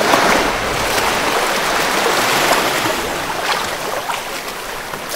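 A wave of surf washing up the sand at the water's edge: a loud rush that swells in at the start and slowly eases off as the water spreads.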